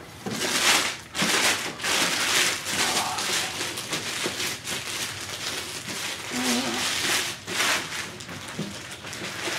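Clear plastic shrink wrap crinkling and crackling as it is torn and peeled off a cardboard collectible box, with continuous rustling throughout.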